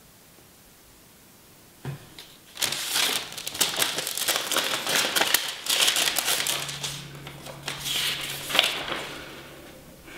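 Paper crumpling and crinkling in a dense, crackly run that starts about two seconds in and fades out near the end.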